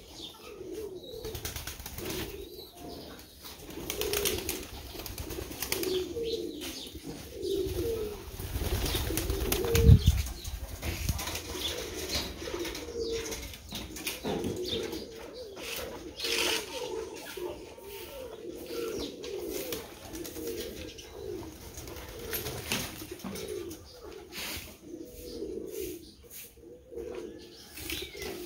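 A flock of domestic pigeons cooing over and over, many overlapping calls with no break. A loud low thump comes about ten seconds in.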